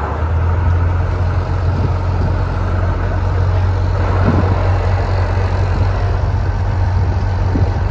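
Tour boat's engine running steadily with a low drone.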